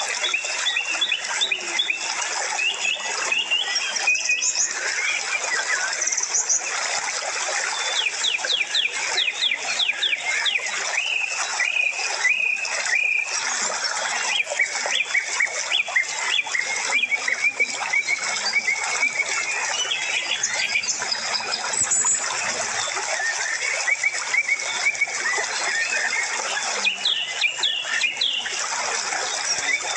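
Many small birds chirping and twittering together in a continuous, dense chorus of short, quick calls.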